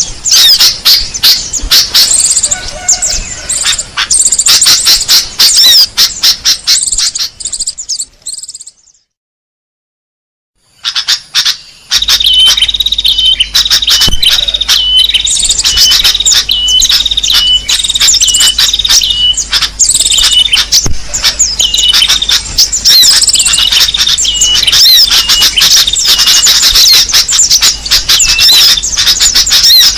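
Small-bird lure call recording (pikat): dense, rapid high-pitched chirping and twittering from many small birds. It drops out to silence for about two seconds a third of the way in, then resumes with a short chirp repeating steadily over continuous twittering.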